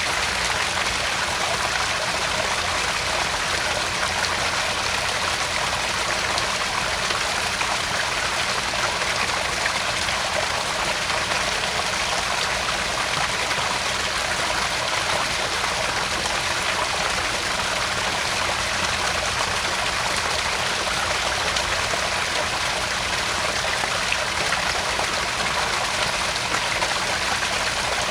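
Small backyard garden pond waterfall: water spilling and splashing into the pond in a steady, unbroken rush.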